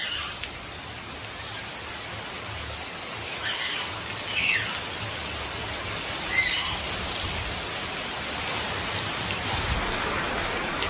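Steady rain falling, an even hiss, from the outer bands of Hurricane Delta. A few short bird calls cut through it, about four times.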